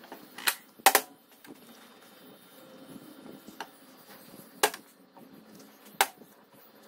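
A handful of sharp knocks and clicks, a second or more apart, from a steel driveshaft and a brake-cleaner pump spray bottle being handled at a cast-iron bench vise while the shaft is cleaned of grease.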